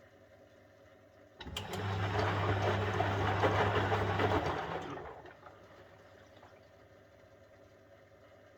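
1971 Constructa Garant 491 washing machine in a boil wash. About a second in, a click is followed by about three seconds of loud humming and rushing, swishing noise. The hum cuts off and the noise dies away over a second, like a drum turn coasting to a stop.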